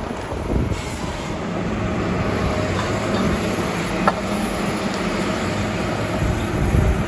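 Heavy logging machinery running with a steady low rumble and rattle, and one sharp click about four seconds in.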